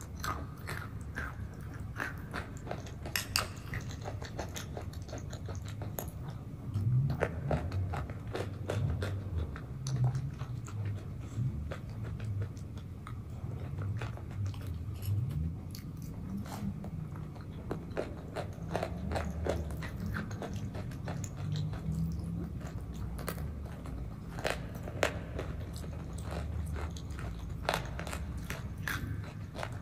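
Close-miked eating sounds: a spoonful of thick, creamy food being chewed with many small wet mouth clicks and smacks, over a low rumble.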